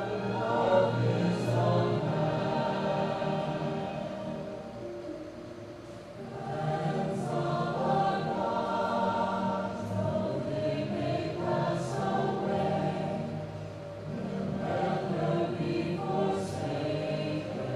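Choir singing in long held phrases, with brief lulls between phrases about six and fourteen seconds in.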